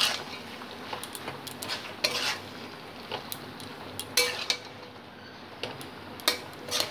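Flat metal spatula scraping and clinking against a kadai as cooked mixed vegetables are stirred, in irregular strokes.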